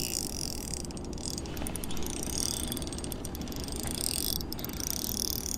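Fishing reel clicking with a fast, fine ratchet while a hooked fish is being played on the line. A low steady hum runs underneath.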